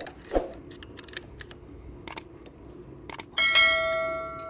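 Light clicks of vice grips and a screwdriver on the steel frame of a hydraulic floor jack. About three seconds in comes a sharp metallic clank and a ringing twang that dies away over a second or so, as the jack's return spring is pushed off its mount.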